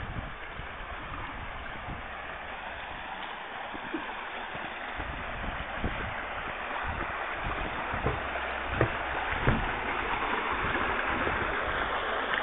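Rushing water of a shallow rocky stream, a steady hiss that grows a little louder toward the end, with a few soft low thumps.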